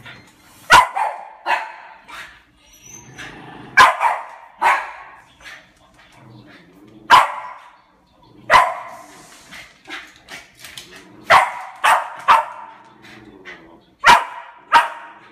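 West Highland white terrier barking over and over, sharp excited barks in irregular runs of one to three, about a dozen in all, as it wants to play with another dog.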